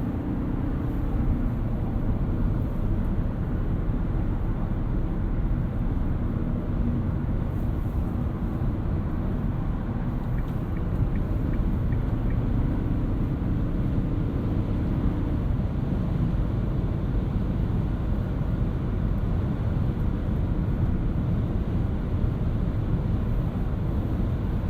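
2018 Toyota Auris Touring Sports 1.8 Hybrid being driven: a steady low tyre and road rumble, with a faint hum that comes and goes.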